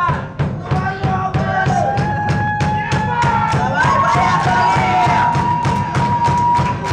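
Live band playing, with drums keeping an even beat under a lead melody that bends in pitch and then holds one long note from about halfway through.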